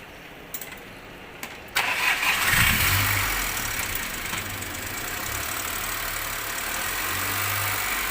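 Volkswagen Polo 1.2 petrol engine started about two seconds in after a few light clicks, catching at once and settling into a steady idle with a strong hiss over it. The engine has heavy blow-by ('back compression'), with crankcase pressure pushing oil out at the dipstick.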